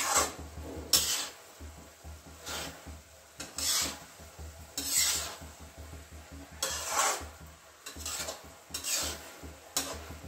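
Metal spatula scraping and turning cooked rice in a kadhai: repeated rasping strokes, about one a second.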